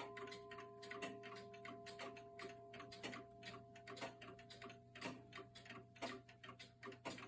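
Sessions tambour mantel clock ticking faintly and evenly, several ticks a second, while the last ringing of its long, thin chime rods dies away under the ticks.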